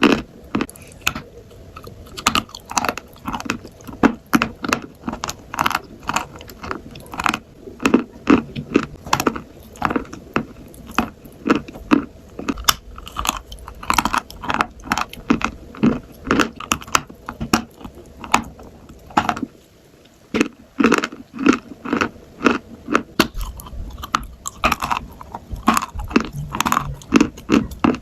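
Crunchy food being bitten and chewed close to the microphone: a steady run of crisp crunches, a couple or more each second, with a short pause about two thirds of the way through.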